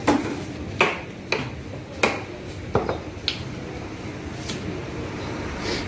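Butcher's knife knocking and clinking against the stainless-steel table and the meat while cutting, six sharp knocks in the first three and a half seconds, then two fainter ones, over a steady low hum.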